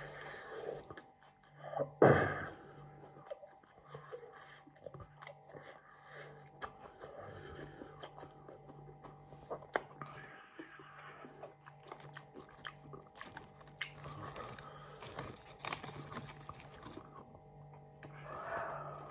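Close-up chewing and crunching of battered fish and chips: many short crisp crunches and wet mouth sounds, with one louder burst about two seconds in. A faint steady hum runs underneath.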